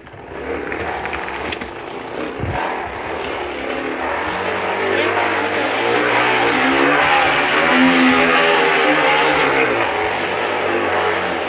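Noisemaker rigged on a bicycle, buzzing like a motorbike engine as the bike is ridden; the buzz gets louder and climbs in pitch with speed to a peak about eight seconds in, then drops back, over wind noise.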